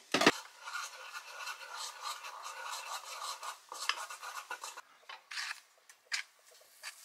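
Batter of pancake mix and water being stirred in a bowl: a utensil scraping and clinking irregularly against the bowl, after one sharp knock at the start.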